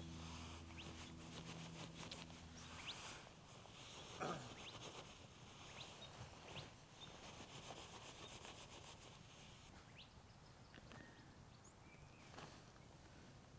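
Quiet outdoor ambience with faint, scattered short bird chirps. Soft sustained music tones fade out about three seconds in.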